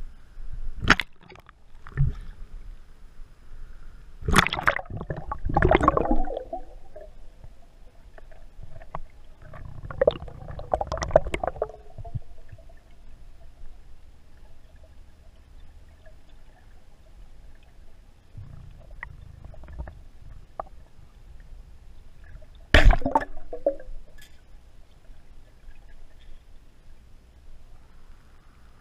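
Water gurgling and sloshing heard underwater, broken by several sharp knocks, the loudest about two-thirds of the way through.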